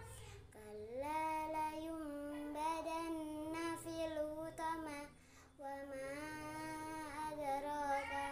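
A young girl's voice chanting Quran recitation in tartil style, in long melodic held notes, with a short pause for breath about five seconds in.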